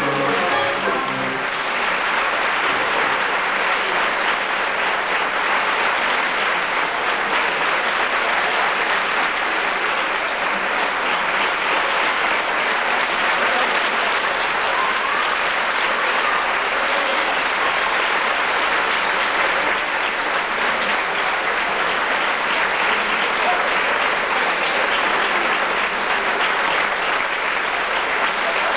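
Theatre audience applauding steadily and at length for the curtain call. The orchestra's last chord dies away about a second in.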